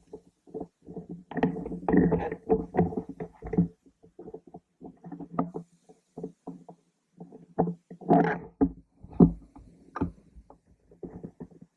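Irregular knocks, scuffs and rattles of handling noise from a camera mounted on an airsoft rifle, in uneven clusters with short quiet gaps; the sharpest knocks come around eight to ten seconds in.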